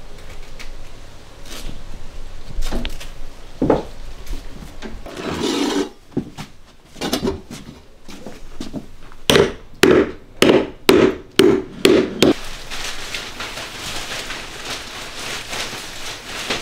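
Floor cleanup work: scraping and rubbing on wood, with a run of about seven sharp knocks, two a second, a little past the middle. After that comes a steady swishing of a wet mop on a tiled floor.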